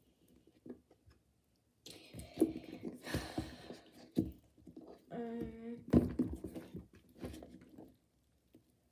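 Wet plastic pencil box handled in a sink: rubbing, clicks and knocks as fingers pull at its lid, with one short squeak about five seconds in.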